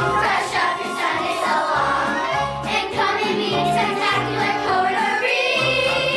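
A chorus of children singing a musical-theatre number together over an accompaniment with a steady bass line.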